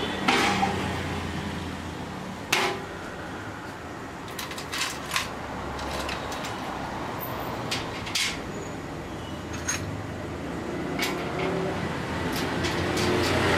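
Scattered clicks and knocks of parts being handled and fitted while an industrial overlock sewing machine's table and stand are put together, the sharpest a little over two seconds in, over a steady low rumble.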